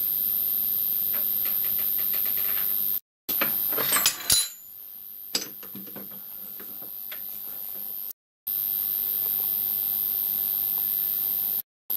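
Steady background hiss with a thin high whine. It is broken by three short dropouts, with faint clicks and a brief clatter of clicks about four seconds in.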